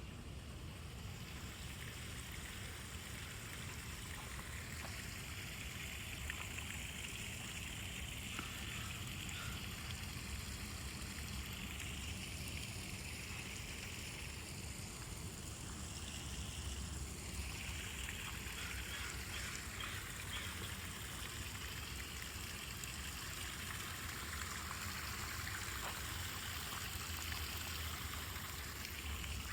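Running water, like a small stream or garden waterfall: a steady rushing hiss with a low rumble underneath.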